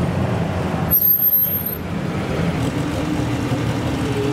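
Vintage Bugatti's engine running as the car rolls slowly past. About a second in there is a brief, loud, high-pitched sound.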